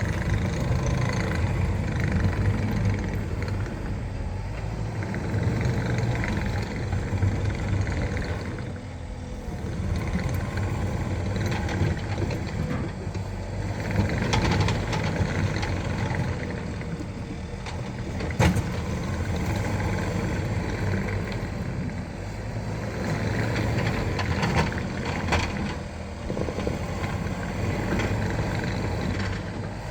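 Skid steer loader engine running while it works, swelling and easing every few seconds, with a single sharp knock about two-thirds of the way through.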